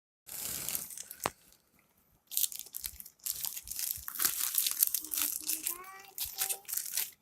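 Crinkling and tearing of a new smartphone box's plastic packaging being handled, in irregular bursts with a sharp click about a second in. A short pitched sound rises briefly near the end.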